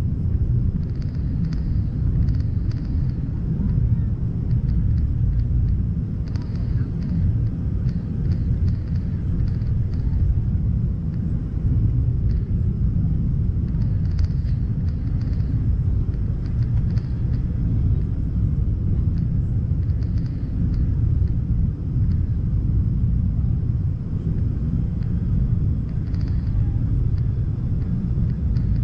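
Steady low rumble of airliner noise from a McDonnell Douglas MD-88, recorded on board, with faint light ticks scattered through it.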